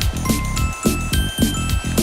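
Bright, upbeat background music with a steady beat of about four strokes a second and chiming bell-like notes on top.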